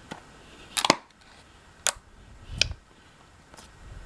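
Glue-and-Tide slime being squeezed and pressed, giving four or five separate sharp clicks and pops about a second apart, the loudest near the start.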